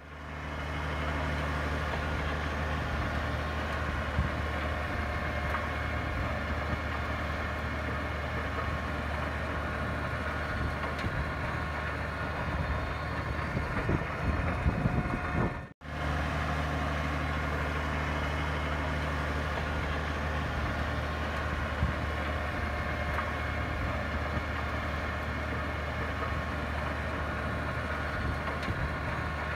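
Tractor engine running steadily under load while driving a PTO rotary tiller through dry, stony soil, a constant low drone with a steady higher whine above it. The sound turns rougher and louder for a couple of seconds shortly before the middle, then drops out for an instant and resumes unchanged.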